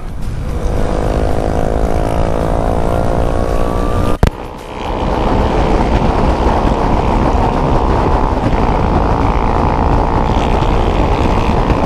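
Yamaha XJ6's inline-four engine accelerating hard, its pitch rising steadily through a gear, then a click and brief dip about four seconds in as the gear changes before it pulls on at steadier revs. Wind noise on the microphone runs underneath.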